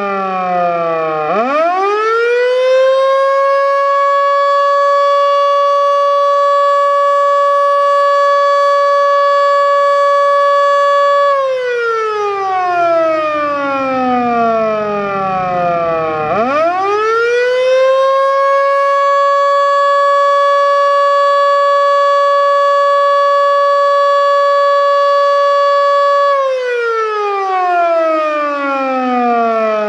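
Federal Signal Model 2 outdoor warning siren sounding its Attack signal. Twice, the pitch climbs fast to a steady high tone, holds for about eight seconds, then winds slowly down over about five seconds, with a low rumble as it slows. Its bearings already sound worn.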